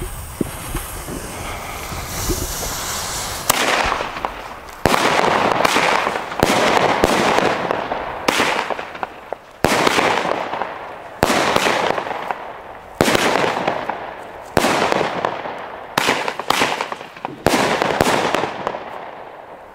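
Xplode Danger 9-shot firework battery going off: a fuse hisses for about three seconds, then about nine shots fire a second or two apart. Each shot is a sharp bang followed by a fading crackle.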